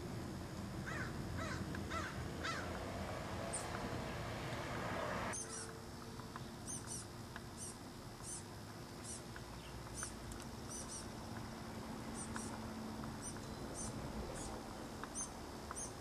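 A crow cawing about four times in the first few seconds, over a steady background rush that cuts off abruptly about five seconds in. Then short, high-pitched bird chips repeat irregularly, a little under two a second.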